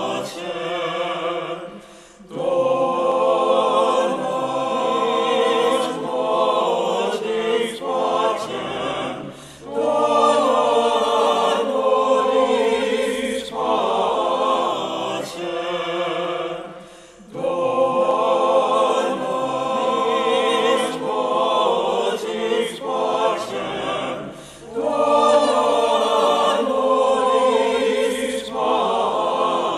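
A choir singing slow, sustained vocal music in long phrases about seven seconds each, with short breaks between them.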